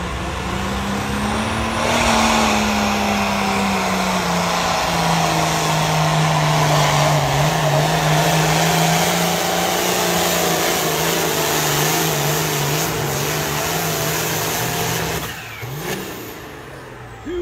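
Hot farm diesel tractor at full throttle pulling a weight-transfer sled. It gives one heavy steady engine note that pulls down in pitch about four seconds in as the load builds, then cuts off about fifteen seconds in.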